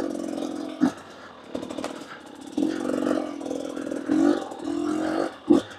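KTM 250 EXC two-stroke enduro engine blipped in short, uneven bursts of throttle at low speed over rocky ground, with a few sharp knocks between the bursts.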